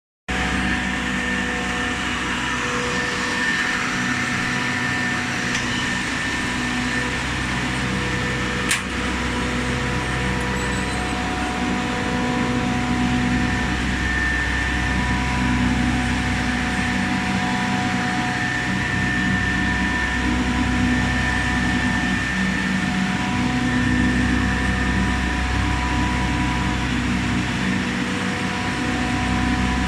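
A 75-ton air-cooled chiller with a Hanbell screw compressor runs steadily: a continuous mechanical hum made of several held tones over a low rumble. There is a single sharp click about nine seconds in.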